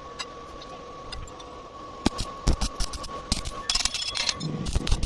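Scattered sharp clicks and clanks, typical of metal pieces or tools being handled, over a faint steady hum. They grow thicker from about two seconds in.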